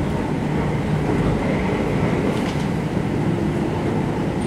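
Kintetsu 1259 series electric motor car (Mo1268) running on the line, heard from aboard: a steady rumble of wheels on rail and running gear.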